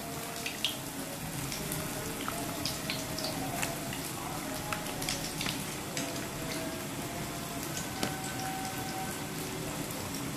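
Pot of tom yum broth boiling, bubbling steadily with many small pops.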